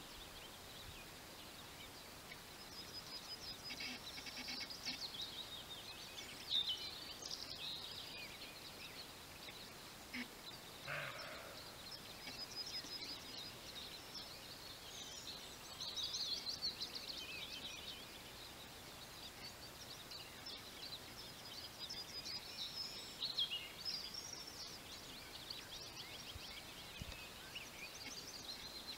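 Several songbirds singing and chirping, with many short high notes throughout. One brief, lower sound stands out about eleven seconds in.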